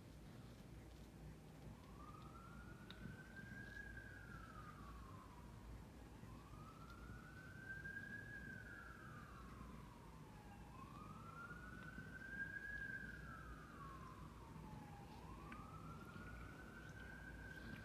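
Faint emergency-vehicle siren in a slow wail, rising and falling about every four and a half seconds, starting about a second and a half in, over a low background rumble.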